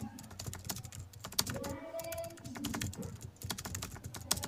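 Plastic keys of a handheld scientific calculator being pressed in a quick, irregular run of clicks while a multiplication is keyed in.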